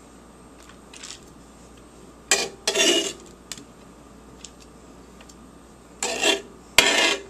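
Kitchen dishes and utensils being handled: a few short clatters and clinks about two seconds in, then more near the end, the loudest a sharp knock.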